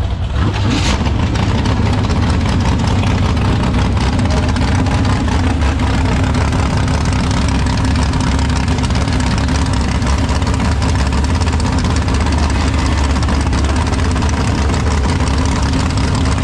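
Mini rod pulling tractor's engine running steadily at idle, test-run while the crew chases a misfire.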